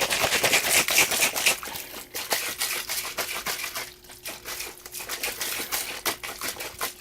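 A plastic shaker cup being shaken hard to mix a drink powder, a fast continuous rattle of many quick clicks, with a brief lull about four seconds in.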